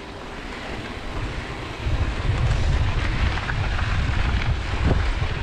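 Wind buffeting the microphone of a handlebar-mounted camera, over the noise of mountain bike tyres rolling on loose dirt and gravel. The low wind rumble gets louder about two seconds in.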